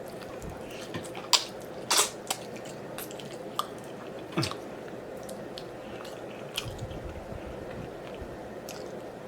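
Close-up wet mouth sounds of a person eating braised oxtail: scattered smacks and clicks of chewing and sucking meat off the bone, louder around two seconds in.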